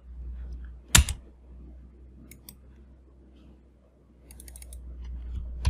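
Computer mouse and keyboard clicks at a desk: one sharp click about a second in, two lighter clicks a little later, and a quick run of faint clicks near the end, over a low hum.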